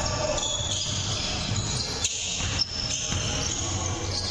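Basketball being dribbled on a hardwood gym floor, with sneakers squeaking as players run, and two sharp knocks about two seconds in, half a second apart.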